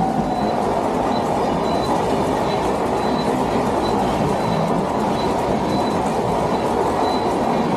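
Indian Railways passenger train's red LHB coaches rolling past close by, a loud steady rumble of steel wheels on rail. A faint high ringing tone comes and goes through it.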